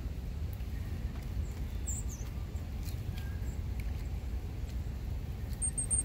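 A few thin, high songbird calls over a steady low rumble: a short falling chirp about two seconds in, and a quick run of three notes near the end.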